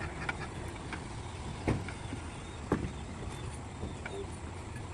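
Two sharp knocks about a second apart, with a few fainter ticks, over a steady low rumble of building-site background noise.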